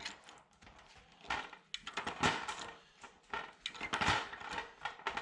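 Irregular knocks and scrapes of hand work, several clattering strokes a second with short gaps between them.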